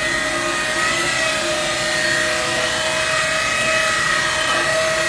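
Fendt Tigo 90XR loader wagon's built-in hydraulic knife grinder grinding the cutting knives in their cassette: a steady metallic grind with a high whine over hiss, running without a break.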